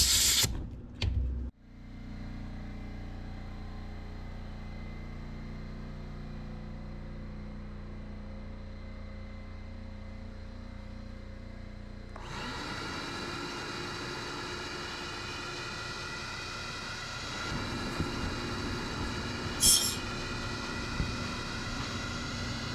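Sandblasting cabinet at work: a steady machine hum, then about halfway through a loud hiss of blasting air starts and keeps going.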